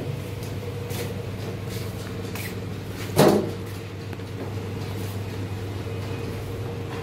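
Workshop machinery humming steadily, with one loud knock about three seconds in and a few lighter clicks.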